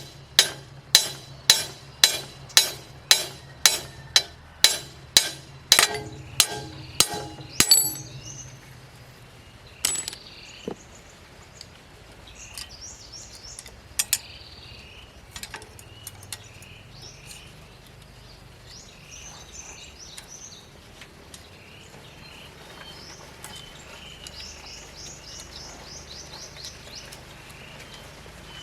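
Hammer striking metal in a steady rhythm, about two ringing blows a second, stopping about eight seconds in. After that come birds chirping and a few scattered metal clicks.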